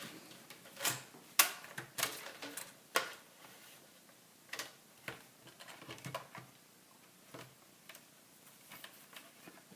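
Irregular light clicks and taps of plastic and metal as a replacement laptop LCD panel is handled and slid into place in the screen lid, the sharpest in the first three seconds and fainter ones after.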